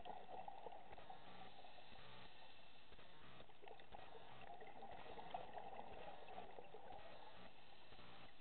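Underwater reef ambience heard through a camera housing: a steady, muffled wash with fine crackling and faint low hums that come and go.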